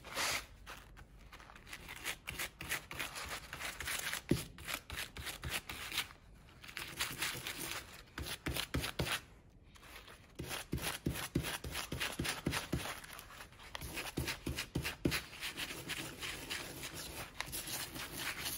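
A small wire brush scrubbing a PCV valve, bristles scratching on metal in quick runs of strokes. There are short pauses about six and nine and a half seconds in.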